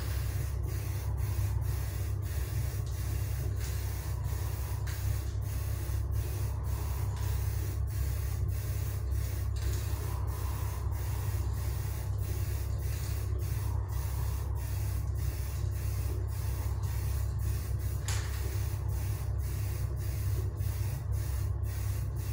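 Steady low mechanical hum with a fainter hiss above it, unchanging throughout.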